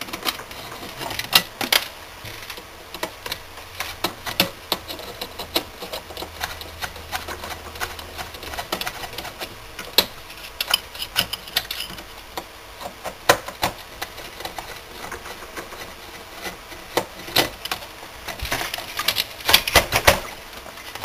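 Irregular sharp clicks and taps of a metal driver working screws on the soft starter's metal housing and terminal block, with a denser run of clicking near the end.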